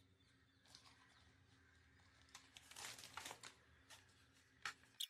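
Near silence, with a few faint clicks and rustles of handling around the middle and two small clicks near the end.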